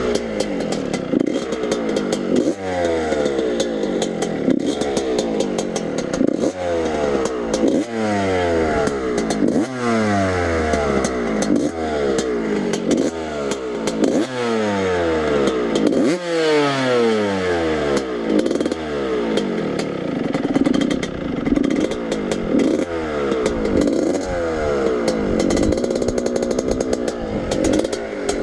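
Dirt bike engine being revved over and over, the throttle blipped and released about every two seconds so each rev rises and then falls back toward idle.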